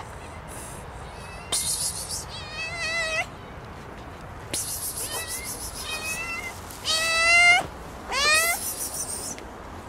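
Stray cat meowing several times in a row, each meow wavering in pitch. The loudest comes about seven seconds in, and the last slides upward.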